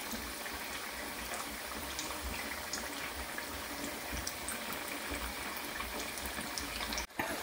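Pressed taro root (arbi) pieces deep-frying in hot oil in a wok: a steady sizzle with small crackles as the oil bubbles around them during their second, crisping fry. The sound drops out briefly about seven seconds in.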